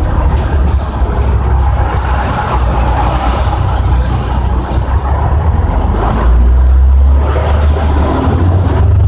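Ikarus 280.70E articulated bus's Rába D10 diesel engine heard from inside the passenger cabin while the bus is under way: a steady, deep engine rumble with road noise, growing louder about six seconds in.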